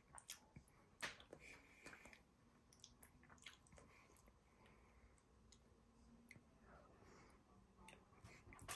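Faint, scattered clicks and scrapes of a metal spoon scooping the soft flesh out of a halved kiwi fruit, with soft chewing.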